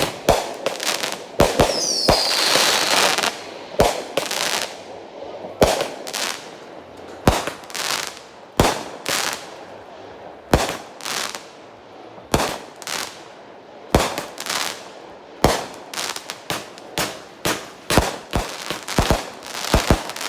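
Fireworks firing: a long string of sharp bangs at irregular intervals, one to two a second, with crackling between them. About two seconds in there is a falling whistle.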